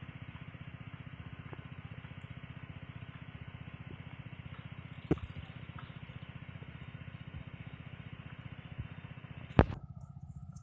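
A small engine running steadily with a rapid, even pulsing, with two sharp knocks, one about halfway through and a louder one near the end.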